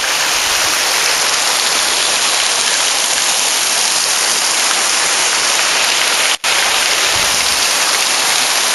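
Steady, loud rush of water from a waterfall and shallow stream in a narrow rock gorge, breaking off for an instant about six and a half seconds in.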